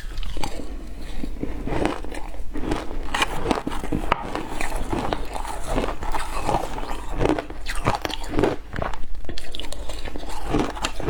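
A person biting and chewing ice close to the microphone: a steady run of loud, crisp crunches, several a second.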